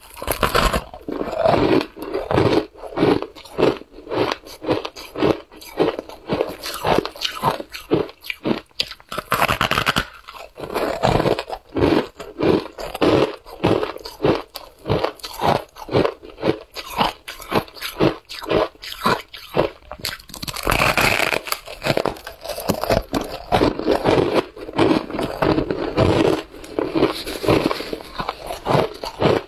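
Packed shaved ice dusted with matcha powder being bitten and chewed: a steady run of crisp, rapid crunches.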